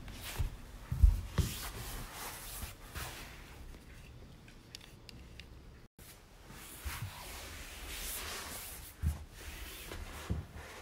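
A kitten's paws scratching and scrabbling on a sisal scratching mat, then pattering on a wooden floor, with a few soft thumps; the loudest thump comes about a second in.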